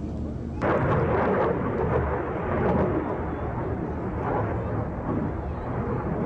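Fighter jet flying overhead: a loud, steady rushing rumble of jet engine noise that starts suddenly about half a second in.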